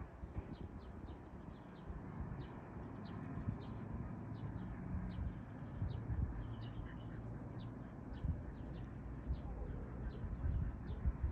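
A bird chirping: short, high chirps repeating about twice a second, over a low rumble with occasional dull thumps.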